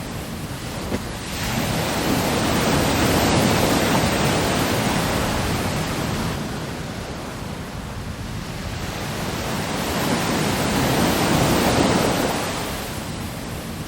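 AI-generated ocean surf sound effect: waves breaking and washing in, swelling in two slow surges, about 3 and 11 seconds in, and easing back between them.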